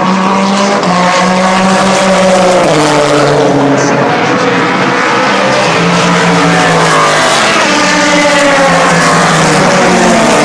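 Several sports racing cars' engines at high revs, their overlapping notes rising and falling as the cars accelerate and pass.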